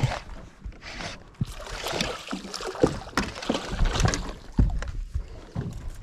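A hooked bream splashing and thrashing at the surface beside a small aluminium boat, with irregular splashes and several knocks and thumps against the boat as it is brought in.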